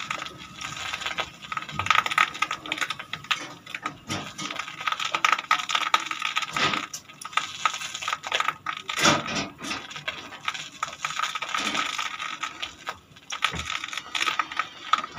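Rapid, irregular metallic clicking and rattling as an old Ruston Hornsby diesel engine is turned over with its hand crank, with a few louder knocks in the middle.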